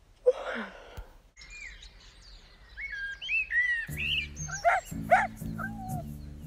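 A brief whoosh at the start, then birds chirping in quick rising and falling calls. About four seconds in, background music with a steady beat comes in under the bird calls.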